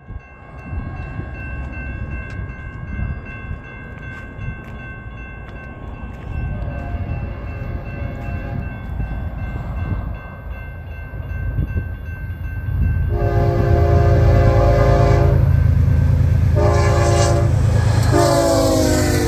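A diesel locomotive's air horn sounds the grade-crossing signal as the train approaches: a long blast, then a second long one, a short one and a final long one. The final blast drops in pitch as the locomotive passes. The engines' rumble grows loud from about two-thirds of the way in.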